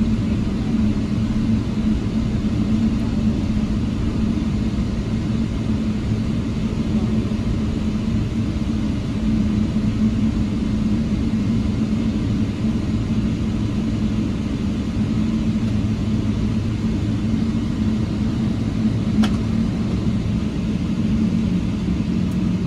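Steady low hum and rumble inside a Boeing 777 cabin as the jet taxis on its idling engines, with a single light click late on.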